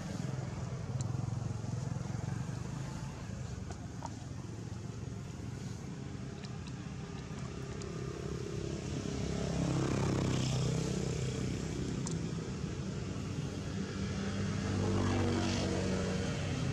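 Engine hum of passing motor vehicles: a steady low drone that swells louder as one goes by around ten seconds in, and again near the end.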